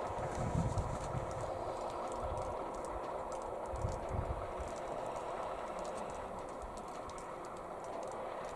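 Steady hum of a quadcopter drone's propellers, with wind buffeting the microphone now and then and scattered faint clicks.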